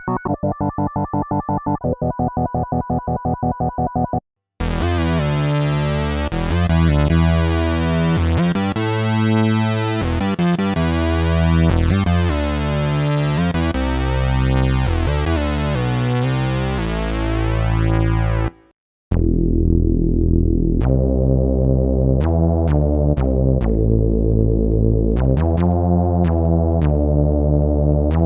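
Roland PROMARS Plug-Out synthesizer presets played in turn. First comes a rapid pulsing repeated-note patch that stops about 4 s in. Then a bright, full sustained patch plays shifting chords until it cuts off about 18 s in, and a lower patch of repeated short plucked-sounding notes follows to the end.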